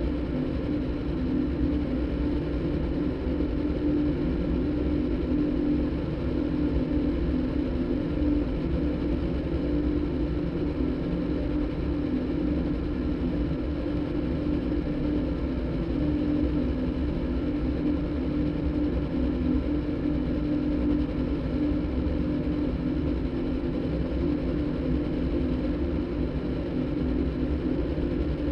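Sound-design drone made from a motorbike engine recording cross-synthesized with a đàn bầu (Vietnamese monochord) concert recording. It is a steady engine-like hum with a held low tone that does not change.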